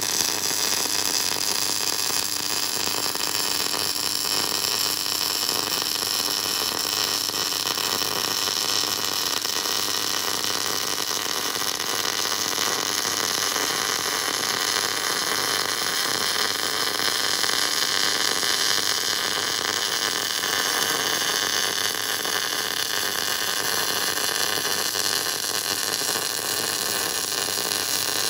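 MIG welder (GMAW) laying a long continuous bead on structural steel: a steady hiss with a fine crackle. It starts and stops abruptly as the torch trigger is pulled and released.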